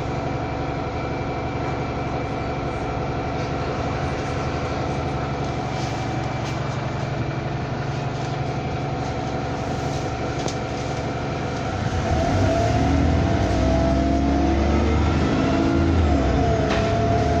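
Bus 27244's engine and drivetrain running, heard from on board, with steady whining tones; about twelve seconds in it gets louder, with a deeper rumble and whines that glide up and shift, as the bus pulls away or accelerates. These whines are the weird noises the bus is known for.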